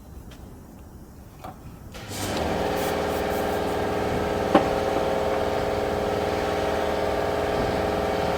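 A motor starts up about two seconds in and runs steadily at an even pitch, with a single sharp click partway through.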